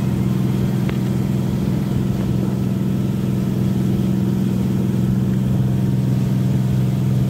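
Boat engine running steadily, a constant low hum that does not change in pitch or level.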